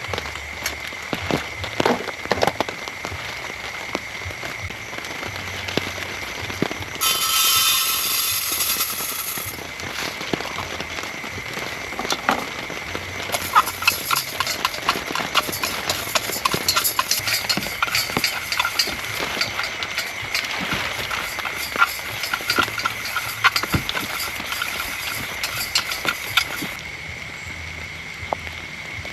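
Heavy rain falling, with many irregular drop taps on a nearby surface, busiest in the second half and easing near the end. There is a brief louder hiss about seven seconds in, and a steady high-pitched tone, like a frog or insect chorus, sits underneath throughout.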